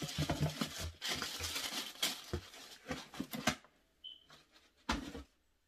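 Cardboard shoebox and its paper being handled: dense rustling with small knocks for about three and a half seconds, then a single thump about five seconds in as a box is set down.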